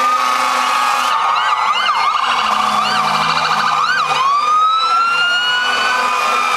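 Sirens of several fire and rescue vehicles sounding at once: overlapping wails and quicker up-and-down whoops, with a rapid warble about three seconds in and a new long rising wail starting about four seconds in.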